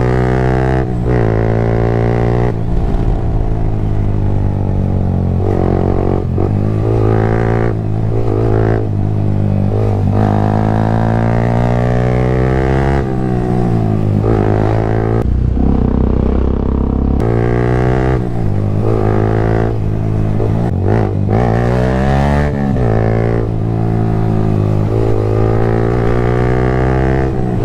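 Yamaha MT-15's 155 cc single-cylinder engine running through an aftermarket Akrapovic exhaust while riding. Its pitch climbs and drops again and again as the bike accelerates and shifts, over a steady low drone.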